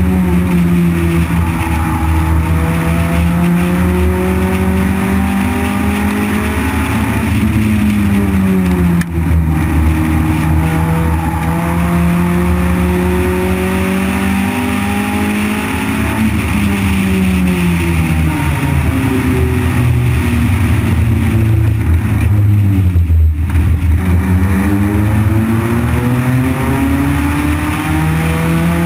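A compact oval-track race car's engine heard on board under racing load. The engine note holds high along the straights, then sags and climbs back as the car lifts for the turns and accelerates out: once about nine seconds in, and more deeply about 23 seconds in.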